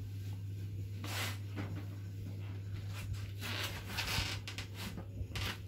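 Soft rustling and brushing handling noises as a silicone cake mould full of batter is lifted and carried to the oven, over a steady low hum.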